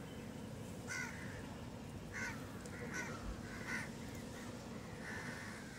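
Crows cawing, about six short harsh caws spaced through a few seconds, over a low steady background noise.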